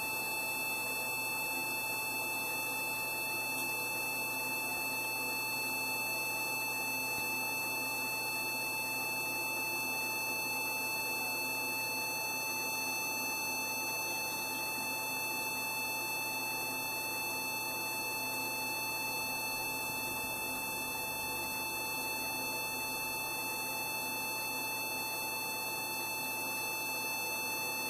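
Gbox 15AB veterinary diode laser sounding its steady emission tone, a high unbroken beep that marks the laser firing continuously as its fibre tip cuts tissue.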